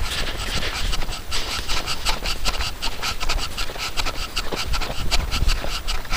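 Boots crunching through snow on a frozen lake in a steady run of footsteps, with wind rumbling on the microphone.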